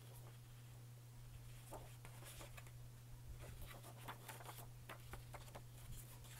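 Faint rustling and crinkling of a folded paper lyric sheet being handled and unfolded, a scatter of soft short rustles over a low steady hum.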